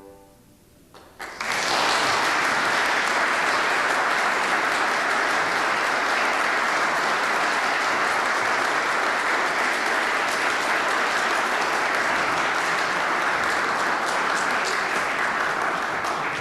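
Audience applauding steadily after a brass band piece, starting about a second in as the last chord dies away and tapering off near the end.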